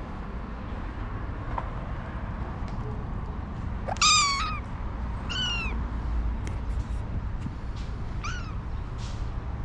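Stray cat meowing three times: a loud first meow about four seconds in, a shorter one just after it and a fainter one near the end, over a steady low outdoor rumble.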